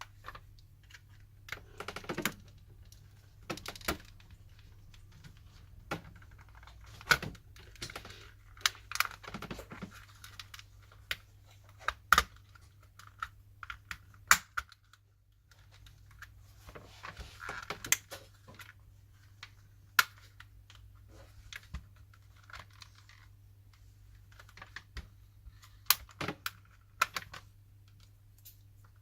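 Plastic shell of a PS4 controller being pried apart with a plastic opening tool: sharp, irregular clicks and snaps as the clips are worked loose, with short stretches of plastic scraping.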